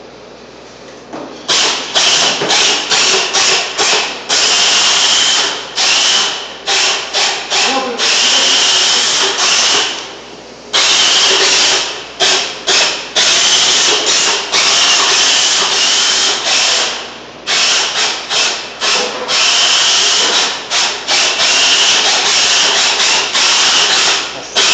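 Electric drive motors and gearboxes of a small four-wheeled robot whining as it drives, switched on and off repeatedly in stretches from a fraction of a second to a few seconds long, set to run at 100% power. About a second and a half passes before the motors start.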